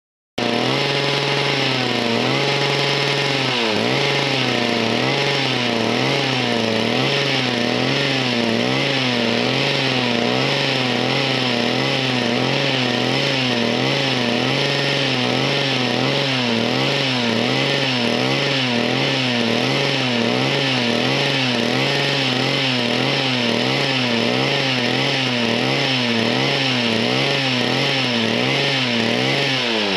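111cc chainsaw power head driving a portable winch, running under load as it drags a log. It cuts in abruptly about half a second in, and its pitch rises and falls in a steady rhythm about once or twice a second.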